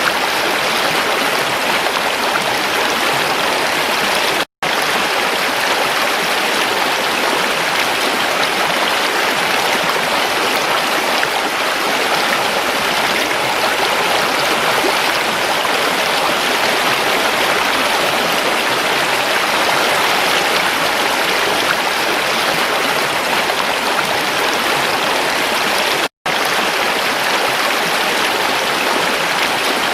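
Creek water running steadily over rocks, a constant rushing and splashing. It cuts out for an instant twice, about four and a half seconds in and again near the end.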